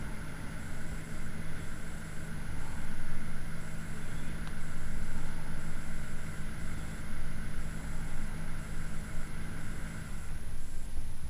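Steady mechanical hum of a running motor with a low rumble beneath it; the hum stops about ten seconds in.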